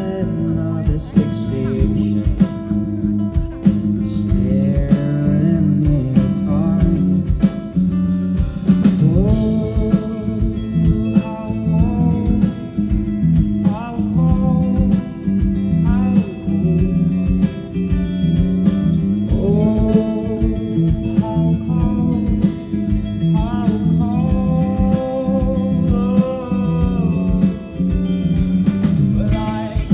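Live rock band playing with a sung lead vocal over guitars, bass and drums.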